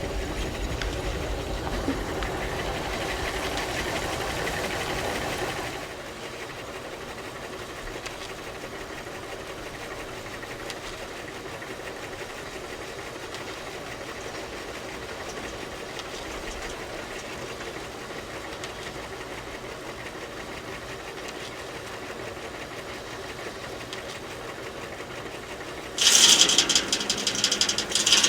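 Steam-powered antique sawmill running steadily, the engine pulsing low and even, louder for the first six seconds and then quieter. About two seconds before the end the saw blade bites into wood with a loud, bright cutting sound.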